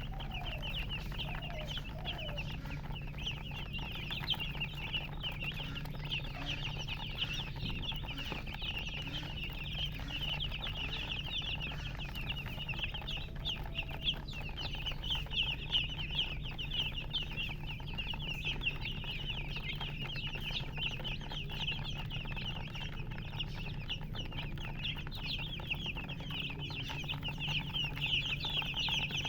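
A brood of baby chicks peeping continuously, many short high chirps overlapping, with a few lower calls from the mother hen and a steady low hum underneath.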